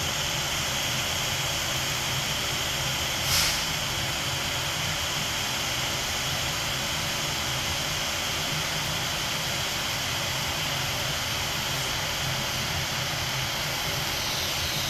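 TIG welding arc on steel square tubing, hissing steadily, with a brief louder crackle a little over three seconds in. The puddle is struggling against contamination being drawn into the weld pool.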